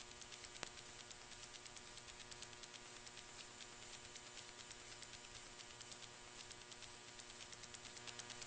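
Dead air from an FM radio station that has gone off the air: near silence holding only a faint steady mains hum and a rapid, faint ticking crackle of static.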